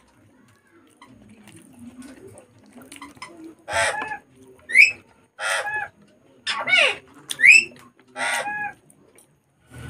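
Birds calling: several short harsh calls and two sharp squawks that rise steeply in pitch, the loudest in the middle of the stretch.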